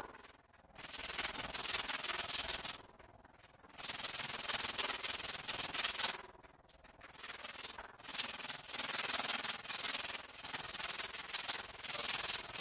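Rubbing strokes over a cement-patched wall surface, about five long scratchy passes lasting one to several seconds each, with short pauses between them.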